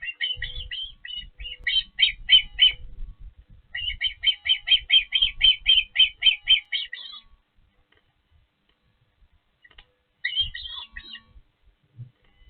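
Osprey calling at the nest: runs of sharp, high chirps at about five a second, in three bouts, the longest lasting about three and a half seconds.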